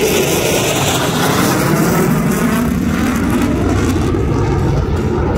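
F-16 fighter jets flying overhead, their jet engines making a loud, steady noise with a sweeping hiss that shifts in pitch as they pass.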